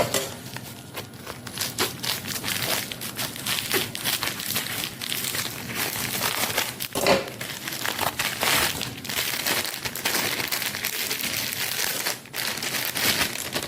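Packaging being handled, a continuous irregular crinkling and rustling, with a louder crackle about seven seconds in.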